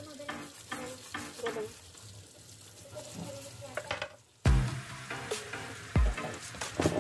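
Hot tap water splashing onto a live king crab's shell in a sink: a hissing spatter. Several heavy thumps come in the second half.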